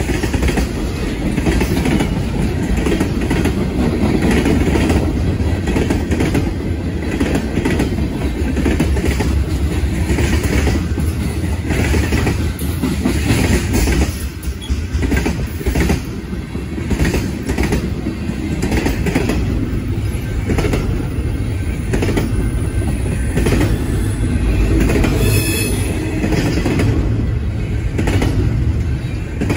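Freight cars of a mixed freight train rolling past close by: a steady heavy rumble with repeated clicking and clatter of wheels on the rails. A brief high wheel squeal comes in near the end.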